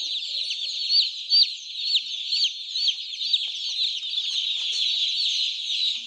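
A flock of day-old chicks peeping without pause: many short, high, overlapping cheeps, some clearly falling in pitch.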